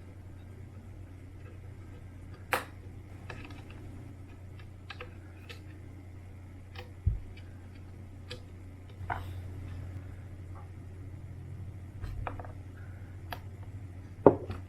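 Scattered small clicks and taps of plastic drone parts and tools being handled, over a steady low hum. A dull thump comes about halfway through, and the sharpest click comes near the end.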